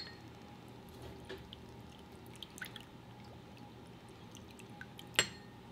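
Soy sauce poured from a glass bottle into a small glass dish: a faint, thin trickle with scattered small drips, and one sharp click about five seconds in.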